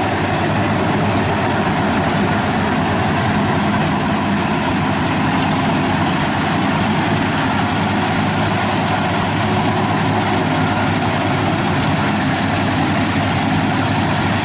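FMWorld WD 102pro rice combine harvester running steadily as it cuts standing rice, its diesel engine and threshing machinery making a constant, unchanging drone with a high hiss on top.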